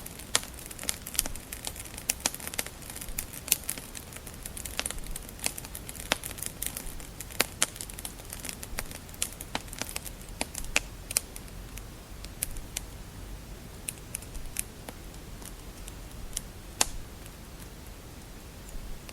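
Wood fire crackling: sharp pops and snaps over a low steady hiss, many in the first half and fewer later on.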